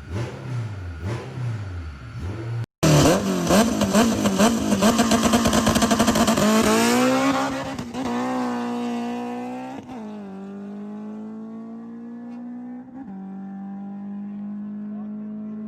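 Car engine in short edited clips: hard acceleration with fast firing pulses, a brief cut about three seconds in, then revs climbing and settling into a steadier, quieter engine tone for the last several seconds.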